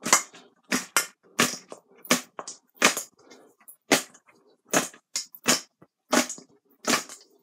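Crispy air-fried chicken wings being tossed in a bowl with barbecue sauce, clattering against the bowl in a quick, uneven series of sharp knocks, roughly two a second.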